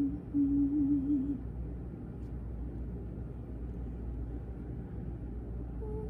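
A soft wordless melody, a single line of notes, that stops about a second and a half in, leaving only a steady low rumble of room noise.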